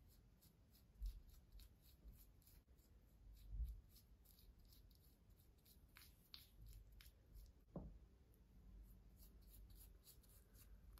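Faint, quiet strokes of a tint brush working hair dye through wet hair, heard as many soft little ticks and rubs of bristles and gloved fingers on the hair, with a few soft bumps.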